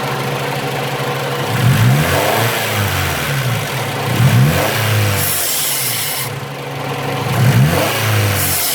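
1998 Honda Civic EX's four-cylinder engine idling and blipped three times, each rev rising and falling back to idle, demonstrating the fault where the AC compressor shuts off as soon as the throttle is hit. A brief high hiss comes in just past halfway.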